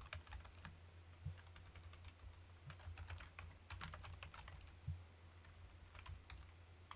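Faint computer keyboard typing: quick runs of keystrokes with short pauses between them.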